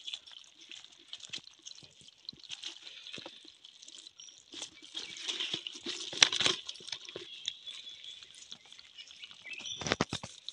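Hands working a wet mesh net bag over a plastic bucket of live crabs, eels and small fish: rustling, scraping and small knocks against the bucket, with a sharp knock a bit past halfway and a louder burst near the end. A steady high-pitched drone runs behind.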